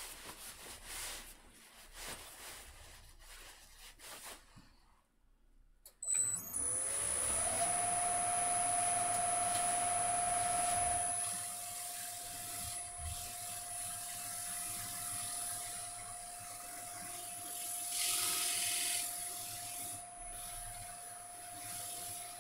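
Quiet rubbing and small clicks, then a wood lathe's motor starts about six seconds in, its whine rising in pitch and settling to a steady hum as the waxed plate spins. A short rise in hiss about eighteen seconds in is the wax being buffed off the spinning wood.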